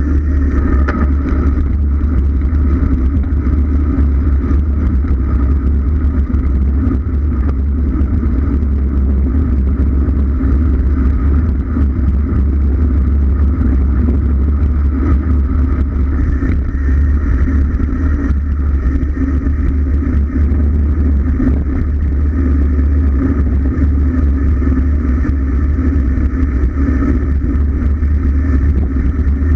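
Wind rushing over the microphone of a camera on a bicycle during a fast road descent: a loud, steady low rumble that does not let up.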